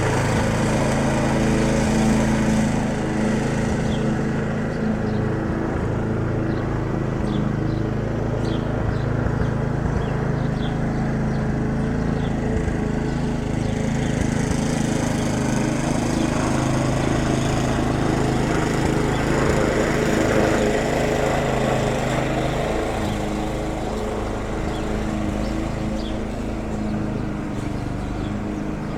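A steady motor hum with a constant low drone and faint scattered ticks over it, running without a break.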